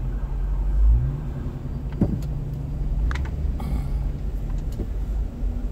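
Car engine idling, heard from inside the cabin, picking up briefly about a second in as the car creeps forward; a few light clicks and knocks inside the car.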